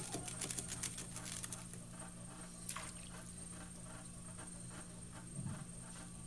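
Wet clay squishing and clicking under slippery hands as a large bowl is thrown on a pottery wheel, over the wheel's low steady hum. The wet clicks come thick and fast for about the first second and a half, then thin out.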